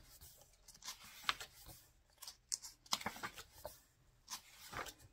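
Pages of a thick paperback book being turned and smoothed flat by hand: a run of short paper rustles and flicks.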